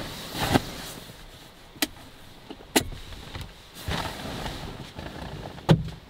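Handling sounds: a few sharp clicks and knocks, the loudest near the end, with short bursts of rustling in between.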